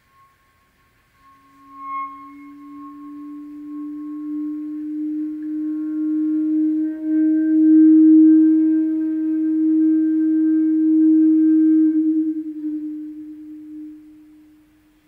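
Clarinet holding one long low note that swells to its loudest about halfway through and then fades away. For the first few seconds a faint high tone sounds above it, a pitch drawn out by partly uncovered vent holes.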